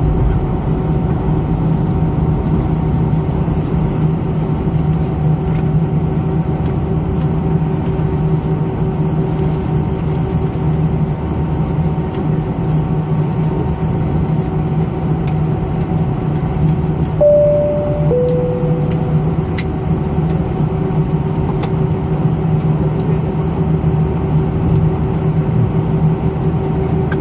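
Airbus A320 cabin noise during taxi: a steady drone from the jet engines at idle, with a steady hum running under it. About seventeen seconds in, a two-note cabin chime sounds, high then lower.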